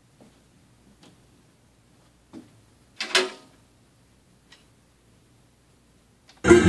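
A drummer moving into place behind a drum kit: faint ticks and footsteps, a sharp knock with a short ring about three seconds in, and a louder knock near the end.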